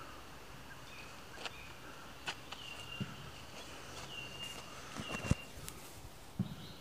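Scattered footsteps and knocks close to the microphone, ending in a couple of louder thuds as the recording phone is handled. A few thin, steady high whistles sound faintly in the background.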